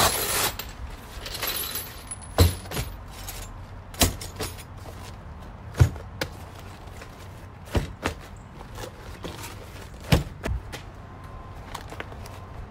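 Metal hand tools such as ratchets and pry bars being put back onto a fabric tool roll: separate sharp clinks and clunks every second or two, with rustling of the fabric near the start.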